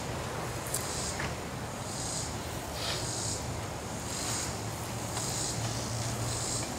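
Insects calling outdoors in high-pitched buzzy pulses, about one a second, over a steady low hum.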